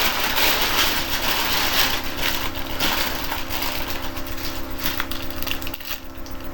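Packaging rustling and crinkling as items are handled close to the microphone, with irregular crackles.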